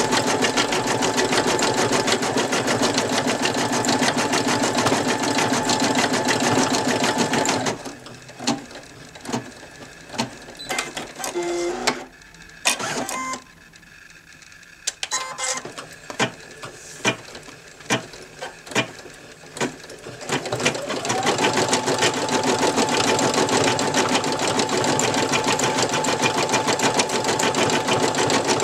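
Brother NV2600 embroidery machine stitching at a fast, even rate, then stopping about a quarter of the way in for some twelve seconds, when only scattered sharp clicks and clunks from the machine are heard. Its motor then speeds up with a rising whine and it stitches on steadily.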